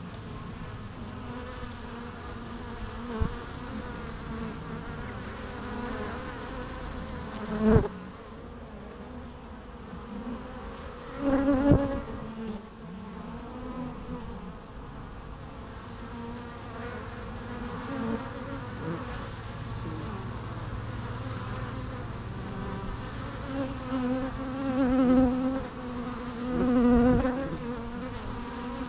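Bees buzzing steadily, several at once. Now and then a single bee passes close and its buzz swells louder for a moment: about a quarter of the way in, again a few seconds later, and twice near the end.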